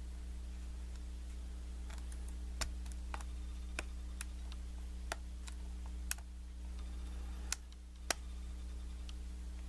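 Small, irregular metallic clicks of a hook pick working the pins of a Kwikset knob cylinder under a tension wrench, about eight ticks with the sharpest near the end, over a steady low hum.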